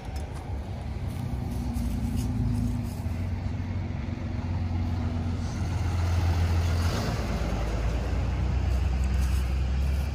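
A motor vehicle's engine running steadily, its low hum stepping down in pitch about five and a half seconds in, with a rush of road or air noise around six to seven seconds.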